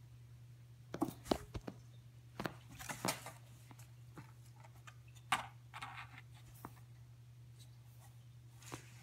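A cat pouncing and scrabbling at a cardboard box and a feather wand toy: scattered sharp taps and scrapes with short bursts of cardboard rustling, in clusters about a second in, around three seconds in and around five to six seconds in. A steady low hum runs underneath.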